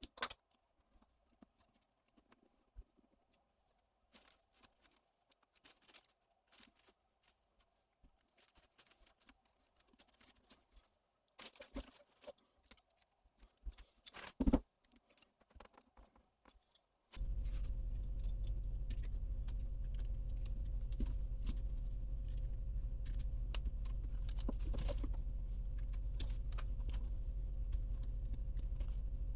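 Scattered light metallic clicks and taps of small hard parts being handled. A little past halfway, a steady low machine hum starts abruptly and runs on.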